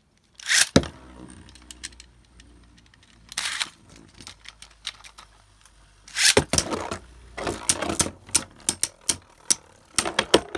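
A Beyblade Burst top is ripped off a launcher about half a second in and whirs on the stadium floor. A second top is launched around six seconds in, and the two spinning tops then clash in a rapid run of sharp clacking hits.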